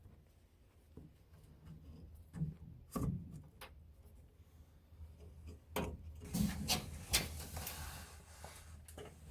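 Scattered light knocks and rubbing of shop work being handled, then about two seconds of scraping broken by clicks in the second half, over a low steady hum.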